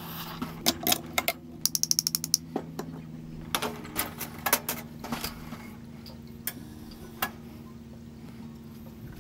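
Espresso machine humming steadily while a shot is made, over the clicks and knocks of cups, portafilter and metal parts being handled, including a quick run of about a dozen clicks about two seconds in.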